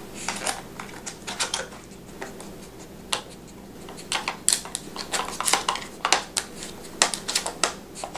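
Plastic Nina Ottosson Dog Brick puzzle toy clattering as a dog works its sliding blocks: irregular clicks and knocks, coming in quick clusters.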